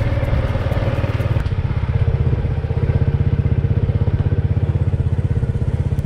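Small motorcycle engine running steadily at low speed with a fast, even pulsing rumble, as the bike rides along a dirt path.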